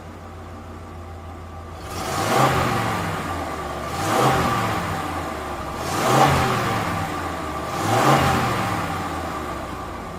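A vehicle engine over a steady low hum, swelling loud and fading again four times, about every two seconds, its pitch sweeping up and down with each swell.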